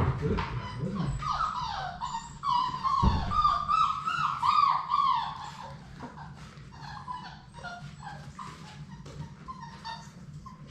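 Several young Labrador Retriever puppies whining and whimpering, with many short, overlapping cries that fall in pitch, loudest in the first half and then fainter. A low thump sounds about three seconds in.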